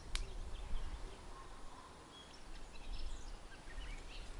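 Quiet garden ambience: small birds chirping faintly and a fluctuating low rumble of wind on the microphone, with one sharp click just after the start.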